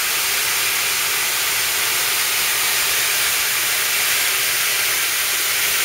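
Steady hiss of rinse water spraying in a semiconductor wet bench's quick-dump-rinse (QDR) tank, the top spray running while the tank drains in the first rinse step.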